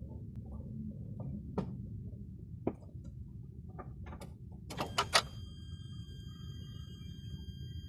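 Scattered light clicks and knocks in a Lada Vesta, then three sharp clicks about five seconds in, followed by a faint steady high whine as the car's electrics come on just before a cold start.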